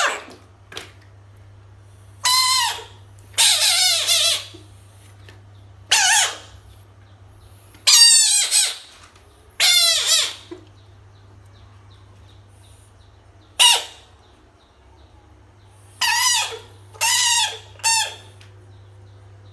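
A frog screaming in distress: about ten short, loud, high cries, each falling in pitch, at irregular intervals of one to three seconds.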